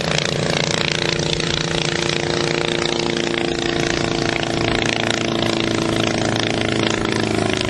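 Hummel UltraCruiser ultralight's engine and propeller making a steady drone as the aircraft flies past overhead.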